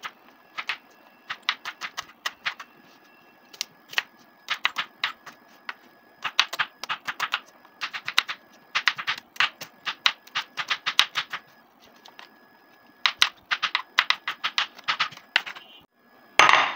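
Kitchen knife chopping onions on a bamboo cutting board: quick runs of sharp taps, about seven or eight a second, broken by short pauses. There is a brief louder noise just before the end.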